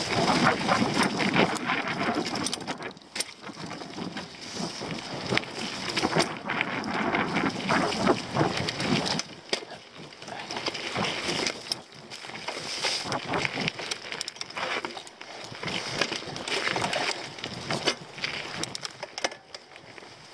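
Mountain bike descending a rough dirt trail: tyres rolling and skidding over packed earth and fallen leaves, with the bike rattling and knocking over roots and bumps. It is loudest on the rougher stretches.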